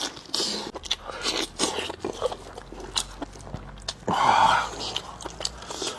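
Close-miked eating: chewing and biting with many short wet mouth clicks and smacks, and a louder, longer noisy sound about four seconds in.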